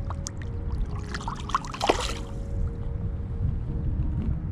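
Water splashing and trickling as a shorthead redhorse is released back into the river, with the loudest splash a little under two seconds in.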